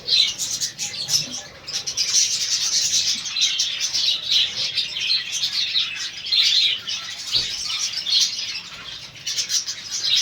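A flock of budgerigars chattering and chirping continuously, many calls overlapping.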